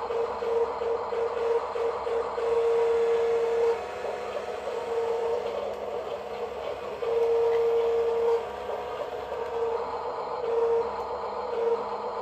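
Toy construction vehicle's small electric motor whining at one steady pitch. It switches on and off: short pulses at first, then a couple of longer runs of about a second, over a constant rattling hum.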